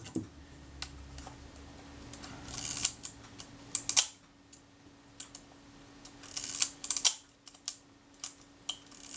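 Light clicks and taps of a small metal camera, a Kodak Retina IIIC, being handled on a workbench, scattered irregularly with a few quick clusters, over a faint steady hum.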